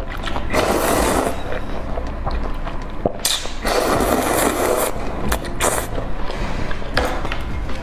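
Close-miked eating sounds: wet chewing and slurping that comes in bursts of about a second, with small sharp clicks between them.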